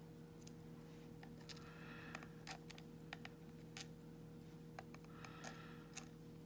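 Faint, scattered light clicks and short scrapes of a small metal lock core and cylinder being handled, over a steady low hum.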